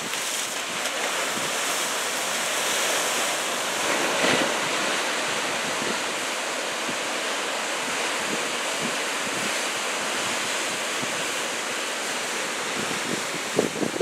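Typhoon swell surf breaking and washing in over a rocky shore: a steady rushing wash of noise that swells slightly about four seconds in.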